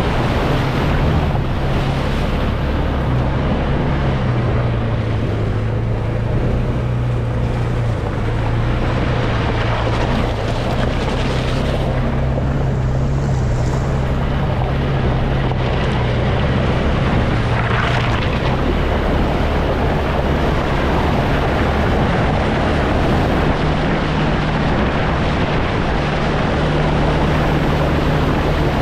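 ATV engine running under way, its note holding steady for long stretches, dropping a couple of seconds in and rising again in the last few seconds as the speed changes, over a constant rush of wind noise.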